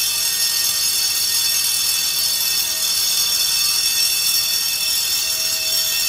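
Deluge fire-suppression system discharging water through its open sprinkler heads: a steady, loud hiss of spray.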